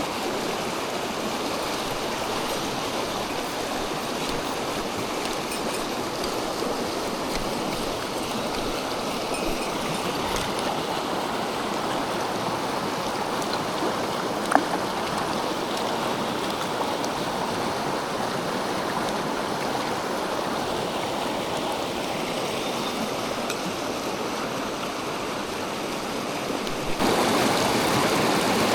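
Mountain stream rushing steadily over rocks, with one short sharp click about halfway through; the water turns abruptly louder near the end.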